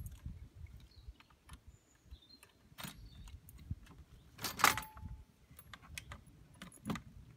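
Keys and the lock clicking, then metal rattles and clicks as an Atera Strada tow-ball bike rack is unlocked and its clamp lever released, with one sharp clank about halfway through.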